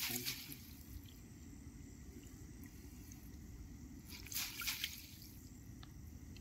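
Fishing net being hauled in by its hand line through shallow river water. About four seconds in there is a brief splash with water running and dripping off the net, over a faint steady outdoor background.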